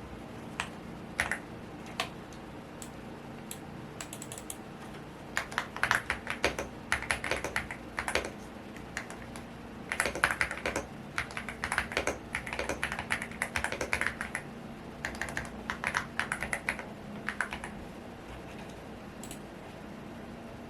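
Typing on a Womier S-K71 mechanical keyboard: a few single keystrokes, then runs of rapid key clicks from about five seconds in until near the end, over a steady fan hum.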